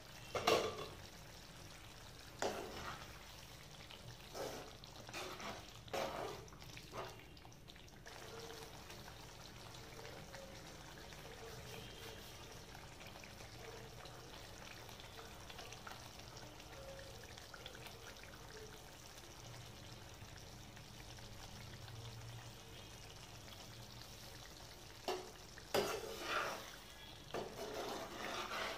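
Paneer curry sizzling and simmering in a frying pan. A metal spatula scrapes and stirs against the pan several times in the first seven seconds and again near the end.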